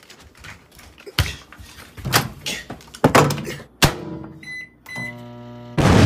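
A few separate knocks and thuds. Then short high electronic beeps and a steady hum, like a microwave oven being set and starting up. Near the end a sudden, loud explosion blast cuts in.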